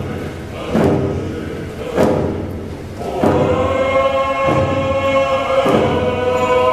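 A First Nations hand-drum song: several frame hand drums struck together in a slow, even beat, about one stroke a second. A group of voices joins in singing about three seconds in, over the drumming.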